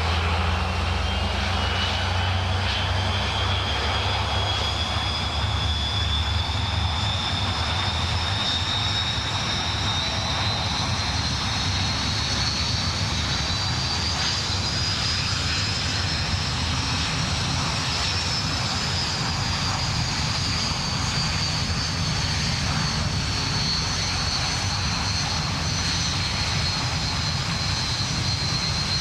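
Jet engines of the Red Arrows' BAE Hawk T1 display jets in flight: a steady rumble with a high turbine whine that rises slowly for about seventeen seconds, then falls back a little.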